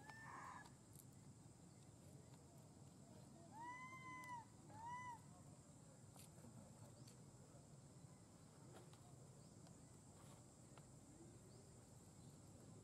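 Macaque cooing: two short, high calls about four seconds in, each rising then falling in pitch, the second shorter. A brief call comes right at the start.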